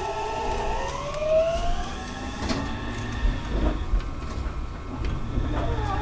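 Meitetsu electric train's inverter and traction motors whining, the pitch climbing as the train pulls away and then levelling off, over a low running rumble. Near the end a wavering, up-and-down tone sets in.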